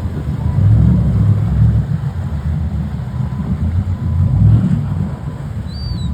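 Wind buffeting the microphone, a loud uneven low rumble, with a bird giving one short high chirp near the end.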